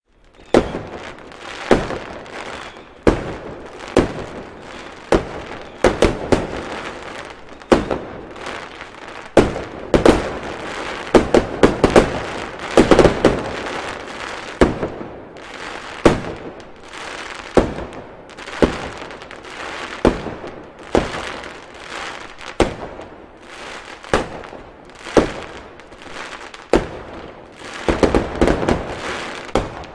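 Fireworks going off: a steady run of sharp bangs, roughly one or two a second, each with a crackling, rumbling tail, thickening into rapid clusters of bangs partway through and again near the end.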